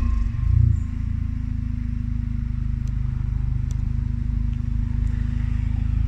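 Volkswagen Golf 7.5 GTI's turbocharged 2.0-litre four-cylinder idling through a full aftermarket turboback exhaust with the catalytic converter and particulate filter removed. A brief low surge in the first second, then a steady idle.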